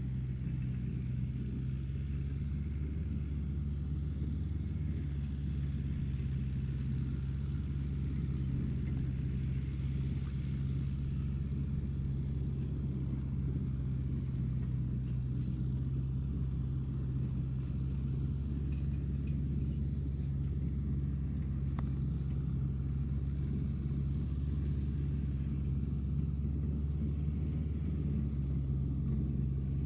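Steady low hum with a faint high-pitched whine above it.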